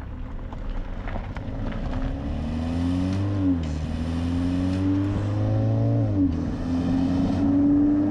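BMW 330e's turbocharged four-cylinder petrol engine accelerating, its note rising through the revs, with two upshifts about three and a half and six seconds in where the pitch drops before climbing again.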